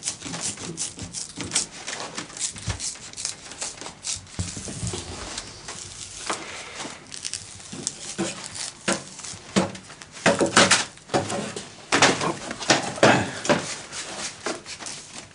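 Irregular cracks, snaps and knocks of a chestnut stick being split lengthwise into laths, with louder bursts of cracking in the last few seconds.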